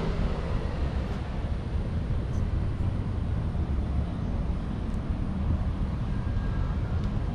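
Steady low rumble of outdoor background noise, even throughout, with no distinct event standing out.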